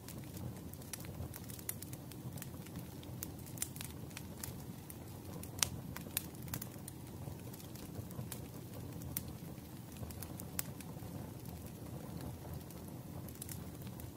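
Wood fire crackling: irregular sharp snaps and pops over a steady low noise of the burning logs.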